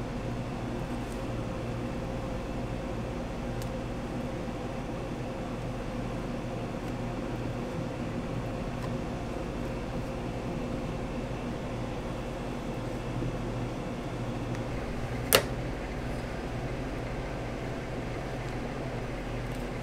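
Steady mechanical hum, like a fan or kitchen appliance running, with a single sharp click about fifteen seconds in.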